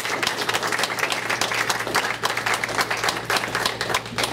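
A small group of people applauding, many hands clapping at once.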